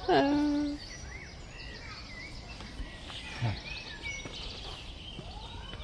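Small birds chirping over steady outdoor background noise, with a brief pitched human vocal sound that falls and then holds at the very start.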